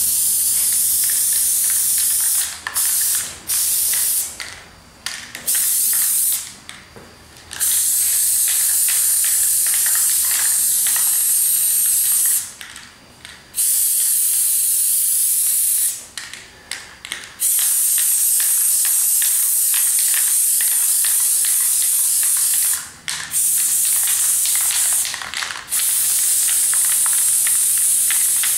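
Aerosol spray-paint can spraying in long hissing bursts, stopping briefly about eight times between them.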